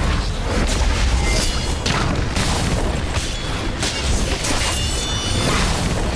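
Martial-arts fight-scene sound effects: repeated sweeping whooshes and booming impacts over dramatic background music.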